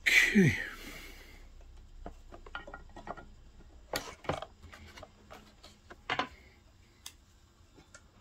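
Scattered clicks and knocks of wire connectors and the plastic housing being handled while a Tefal steam generator iron's base is put back together. It opens with a loud brief sound that slides down in pitch.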